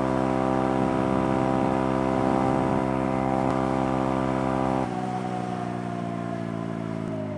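Motorcycle engine running at a steady cruise, heard from the rider's helmet. About five seconds in the throttle closes and the engine note grows quieter and falls slowly in pitch as the bike slows.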